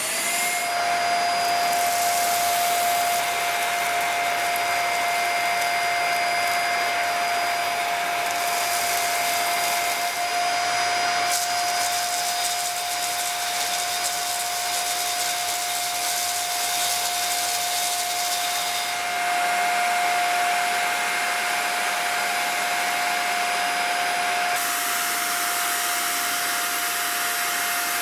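Dyson Small Ball upright vacuum cleaner running at full suction, a steady high motor whine over a loud rush of air. The airflow hiss shifts in character several times, as when suction through the hose or attachment is opened or partly blocked.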